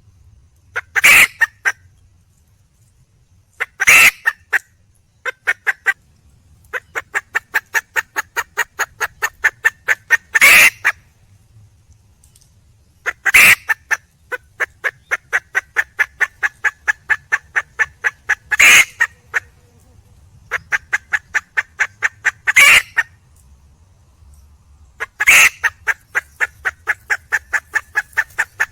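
Wild junglefowl hen cackling: runs of quick clucks, about five a second, broken every few seconds by a loud, sharp squawk. A hen calling for a male.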